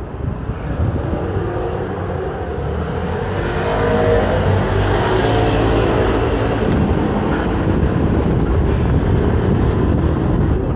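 Street traffic: a motor vehicle's engine running close by over a constant road rumble, growing louder over the first few seconds and then holding steady.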